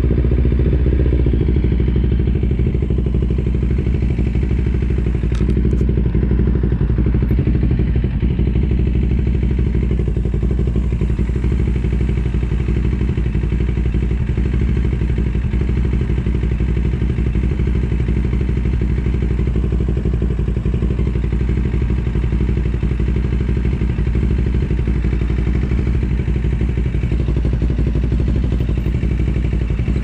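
CFMOTO 700CL-X Sport's parallel-twin engine idling steadily through its new exhaust and catalytic converter.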